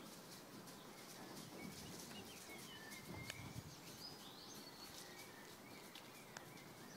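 Faint birds chirping, short scattered calls over quiet outdoor background hiss.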